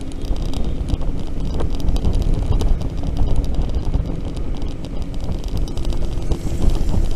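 Steady wind rush and rumble on the microphone of a rider on a moving electric scooter, with passing traffic.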